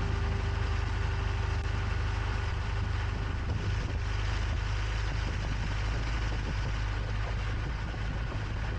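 Steady low rumble of a moving vehicle's engine and motion noise, with no change in pace.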